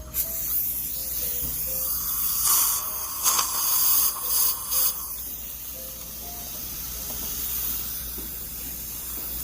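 Dental chairside equipment in use during gum treatment: a steady high hiss of suction and water spray, with louder bursts of spray between about two and five seconds in.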